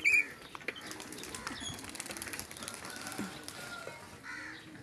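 Loose metal wheelbarrow rattling and clicking as it is pushed, loaded with clay, over dirt ground, in a quick run of small clicks for the first few seconds. Faint short bird chirps come through as well.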